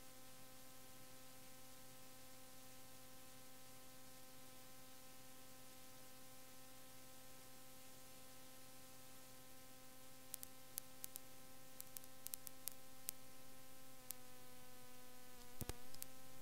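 Steady electrical hum with tape hiss from an old recording. From about ten seconds in come a string of sharp clicks, then a louder clunk near the end that briefly bends the pitch of the hum.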